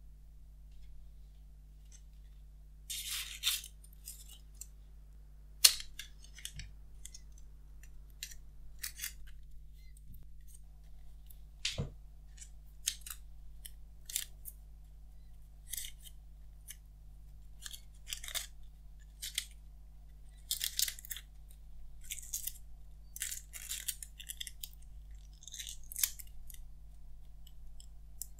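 Protective plastic wrap being peeled and crinkled off a small plastic power adapter: a string of short crackles, rustles and sharp little clicks, with gaps between them.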